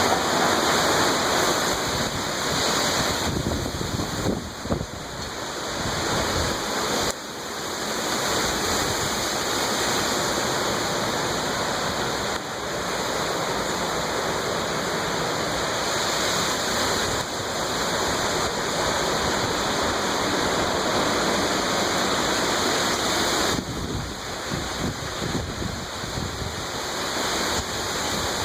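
Torrential rain pouring down in a windstorm with gusts up to 49 mph: a steady rush of water noise that dips and swells with the gusts, most noticeably about five seconds in and again near the end.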